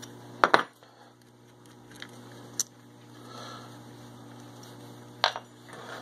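Metal clinks and clicks of a wrench and small metal contact parts being worked loose from the terminals of an oil-burner ignition transformer. The loudest pair comes about half a second in, with a few lighter clicks later.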